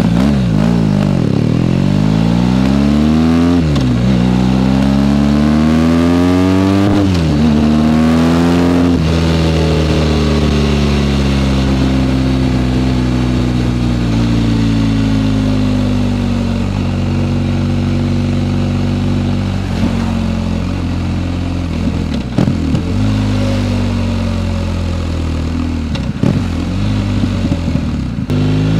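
BMW R1250GS boxer-twin engine accelerating hard, its pitch climbing through three quick gear changes over the first nine seconds. It then falls away as the bike eases off and cruises, with a few short drops in engine pitch late on, and picks up again right at the end.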